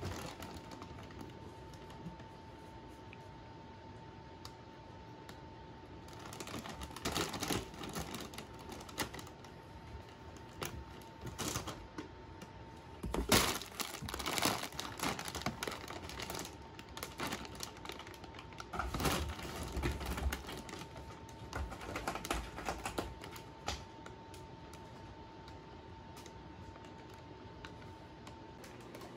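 Plastic cat-food bags crinkling and clicking as a cat paws and pushes its head into them, in irregular bursts that are loudest about halfway through and again about two-thirds in. A faint steady tone hums underneath and stops near the end.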